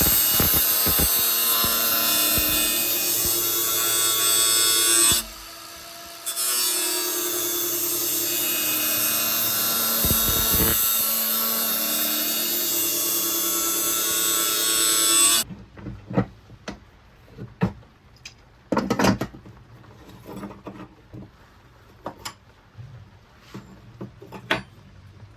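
Angle grinder grinding steel, running steadily with a short dip about five seconds in, then stopping abruptly about fifteen seconds in. Scattered light clicks and knocks follow.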